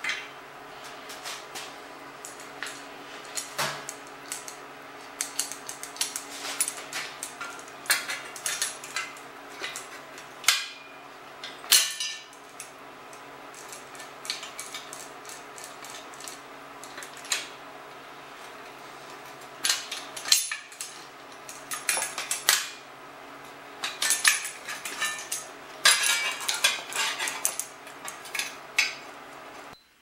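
Irregular metallic clinks, clanks and rattles as the sheet-metal blades of a windmill wheel and steel hand tools such as pliers and locking clamps are handled and set in place. A steady hum runs underneath.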